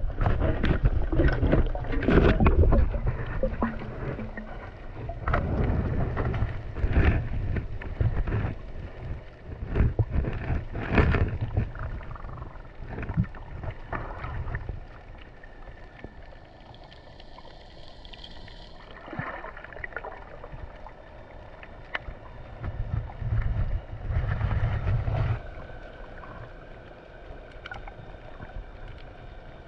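Underwater noise from a camera moved through the water of a fish cage: a low rumble of moving water with irregular knocks and clicks, busiest in the first half and quieter after about fifteen seconds.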